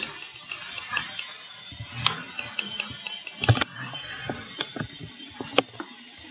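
About twenty irregular sharp clicks and light taps, unevenly spaced, the loudest about three and a half seconds in: small hard objects being handled.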